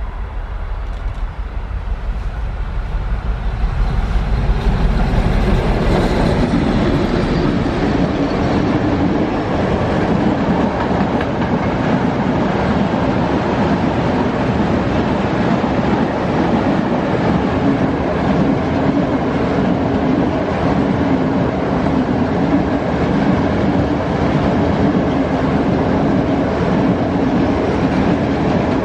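Train passing close by, hauled by an SU46 diesel locomotive: the locomotive's low engine rumble fills the first few seconds, then gives way to the steady rolling clatter of the wagons' wheels on the rails.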